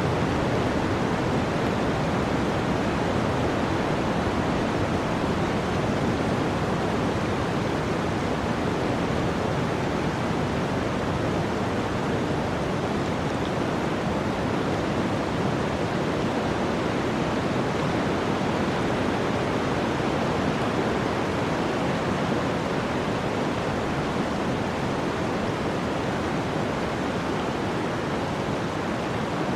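Running water rushing steadily, one continuous even noise with no breaks.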